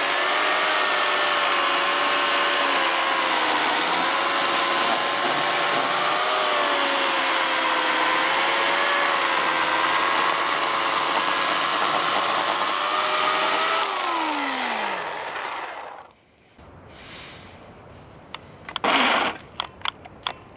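Oregon CS1500 corded electric chainsaw running with a steady whine while cutting into a log. About 14 seconds in the motor cuts out and winds down with a falling whine. The owner suspects it overheated or burnt up. A few short knocks follow near the end.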